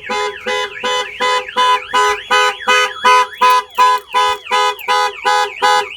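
Clifford 330 aftermarket alarm sounding on a Ford Transit, triggered by its locked side door being forced. Its multi-tone siren sweeps up and down over the factory Ford alarm siren and the van's horn, which honks about three times a second. It all cuts off abruptly at the end as the alarm is disarmed.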